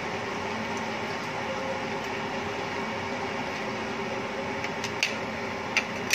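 A metal spatula stirring a milk sauce in a metal wok, over a steady whirring hum; near the end the spatula gives a few sharp taps against the pan.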